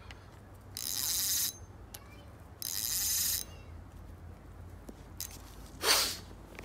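Penn Battle spinning reel's drag buzzing twice as fishing line is pulled off the spool by hand, each pull lasting under a second. A shorter, louder burst of noise follows near the end.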